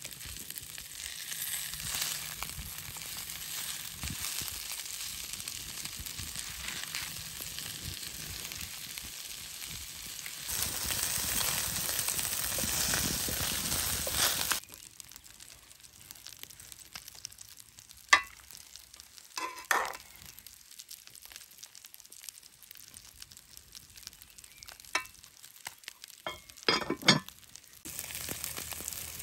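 Salmon fillets sizzling on baking paper in a cast-iron pan over a wood fire: a steady frying hiss that grows louder about ten seconds in. About halfway through it drops away to a quiet stretch broken by a few short sharp clicks, and the sizzling comes back near the end.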